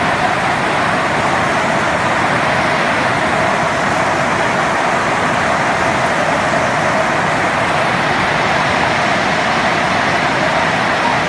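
Heavy hail and rain falling hard, a loud, steady, dense hiss of countless small impacts with no let-up.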